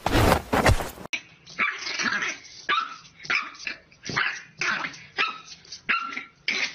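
About a second of loud rapid knocking, then a French bulldog puppy barking and yipping at its own reflection in a mirror, short high barks about two a second.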